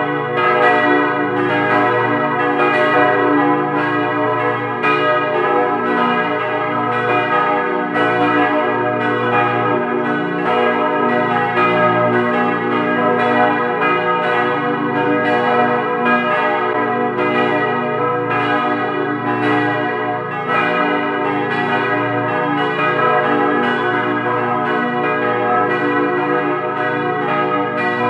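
Several large swinging church bells, from a four-bell Ruetschi peal cast in 1927, ringing together. Their clappers strike in an overlapping, irregular sequence about once a second, with the tones of the different bells ringing on under one another. The bells are heard loud and close, from inside the belfry.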